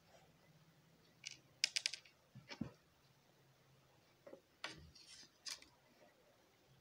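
Pen writing on card paper: faint, short strokes and clicks come and go. A quick run of ticks comes about a second and a half in, and a few more strokes follow near the middle and later on.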